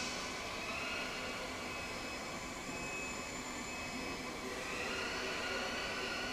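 Steady machine whir with several high whining tones over it; a further whine rises in pitch about four and a half seconds in.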